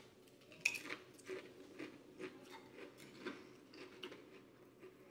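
A Pringles potato crisp bitten with one sharp crunch under a second in, then chewed with short crunches about twice a second.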